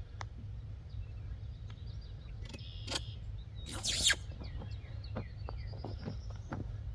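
Outdoor ambience: birds chirping over a steady low rumble, with scattered clicks and a brief loud hissing scrape about four seconds in.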